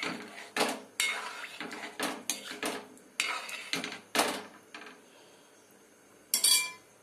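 A cooking spoon scraping and knocking against the side of a metal kadai while potatoes in curry are stirred. About a dozen quick strokes come over the first five seconds, then one louder stroke near the end.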